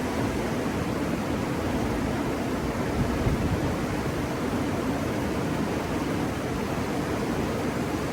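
Steady rush of river water flowing over rocks, an even roar with no break or change.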